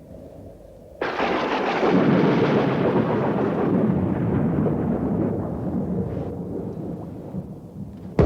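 Thunderclap: a sudden crash about a second in, rumbling on and slowly dying away over several seconds.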